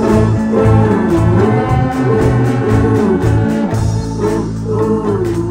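Band music with no vocals: guitar and organ playing wavering, held notes over a steady drum beat.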